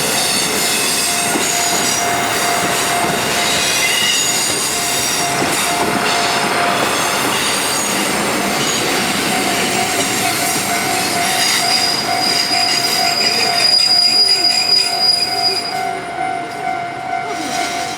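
KiHa 85 series diesel railcar running slowly over the rails, its wheels squealing, while a level crossing bell rings in a steady repeating pattern. A high, held squeal comes in about eleven seconds in and is loudest around fourteen seconds, then the sound fades near the end.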